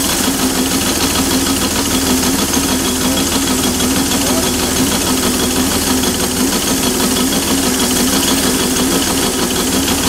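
An engine running steadily at an even speed, with a constant hum.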